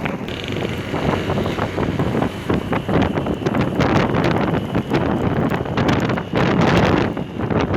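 Wind buffeting the microphone: loud, uneven low rumbling noise.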